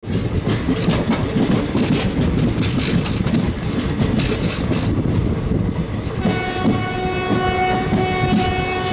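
An express train's wheels clattering over the rails, then about six seconds in the WAP4 electric locomotive sounds a long, steady horn blast.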